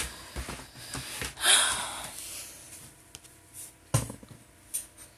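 Rustling and handling noise of a person leaning over close to the phone, loudest about a second and a half in, then a single sharp knock about four seconds in.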